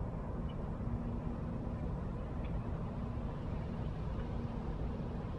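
Steady low background rumble with a faint, steady hum running through it.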